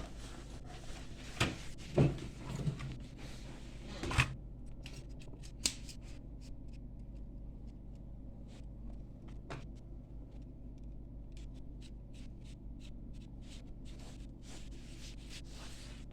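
Small tools being handled at an electronics workbench: a few sharp clicks and knocks in the first few seconds, a faint hiss that cuts off about four seconds in, then light scattered ticks over a steady low hum.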